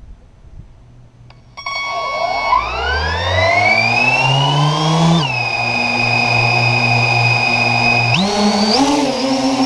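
FPV quadcopter's brushless motors, heard close through the drone's own camera: about a second and a half in they start with a sudden steady whine, spin up in a long rising whine, drop to a steady hum about five seconds in, then rise again and waver up and down near the end as the throttle is worked before takeoff.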